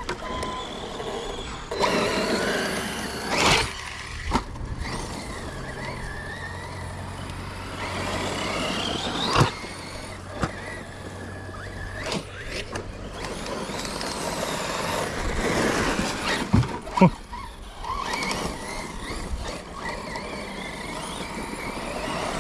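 Electric RC cars running, their motor whine rising and falling as they accelerate and slow. There are several sharp knocks, two close together about two-thirds of the way in.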